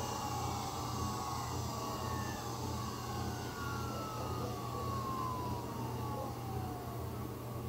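Toshiba MK3017GAP 30 GB laptop hard drive spinning down: its whine falls steadily in pitch over about six seconds as the platters slow, over a low steady hum.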